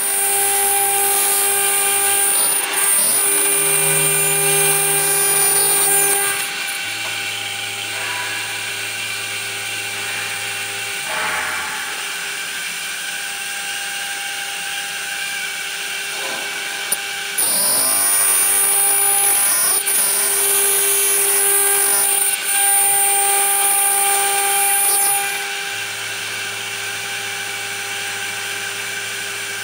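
BMG-1325M CNC router spindle milling an aluminium plate: a steady high whine, with louder stretches of high-pitched cutting screech as the bit engages the metal, roughly in the first six seconds and again from about 17 to 25 seconds in. Low hums from the axis drive motors switch on and off as the gantry moves.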